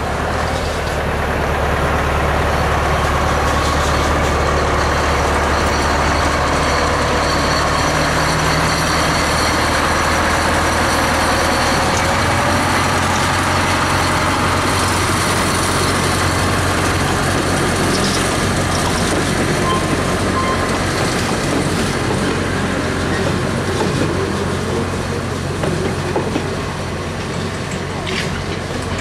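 Hunslet four-wheel diesel-hydraulic locomotive's engine running steadily as it hauls a short freight train past, with the wagons rolling along the track behind it.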